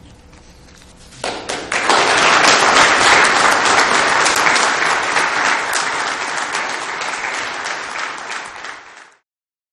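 Audience applauding. The clapping starts about a second in, swells quickly to full strength, and cuts off abruptly near the end.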